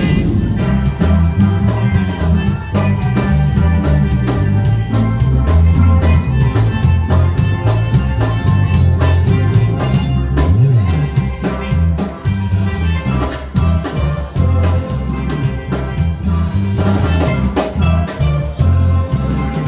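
Upbeat music with a steady drum beat, a moving bass line and bright melodic lines over it.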